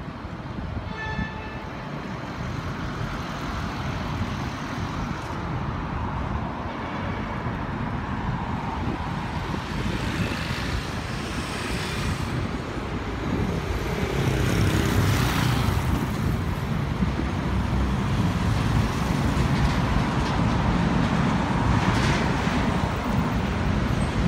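Road traffic going by on a busy road: a continuous rumble of passing vehicles that grows louder from about halfway through, with several vehicles swelling past. A short horn toot sounds about a second in.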